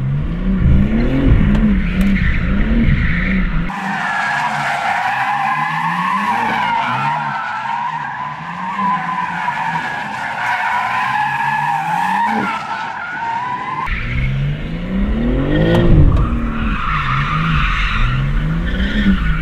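A stock BMW M3 CS's twin-turbo straight-six revs up and down, heard inside the cabin, as the car is held in a drift. About four seconds in, the sound changes to a long wavering tyre squeal from outside the sliding car, lasting about ten seconds. Then the engine revving inside the cabin returns, with tyre squeal faintly behind it.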